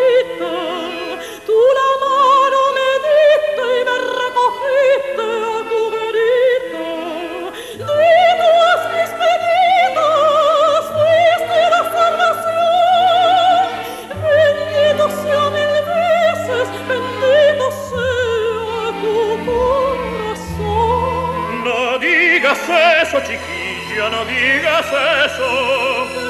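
Soprano and tenor singing an operatic duet in Spanish with wide vibrato, over orchestral accompaniment. The voices sometimes sing together, and the singing rises to a high, bright passage near the end.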